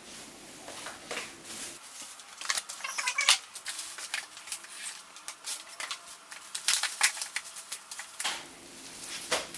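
Crackling, clicks and rustles as pushchair parts and their plastic packaging are handled, with a few short squeaks about three seconds in.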